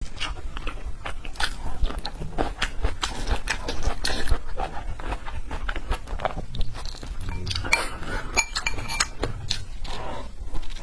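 Close-miked eating sounds of a person chewing red braised pork: a continuous run of irregular wet mouth smacks and chewing clicks.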